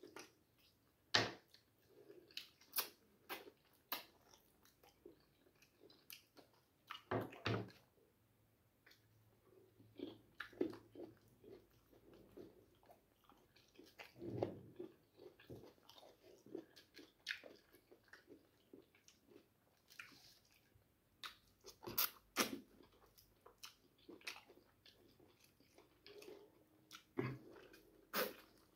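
Close-up mouth sounds of a man eating cooked meat by hand: irregular chewing and biting, with short sharp sounds scattered throughout and a few louder clusters of bites.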